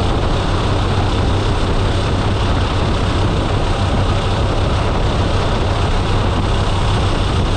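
DHC-6 Twin Otter's twin PT6A turboprop engines and propellers running steadily in flight, heard from inside the cabin: a constant low drone under a broad rush of noise.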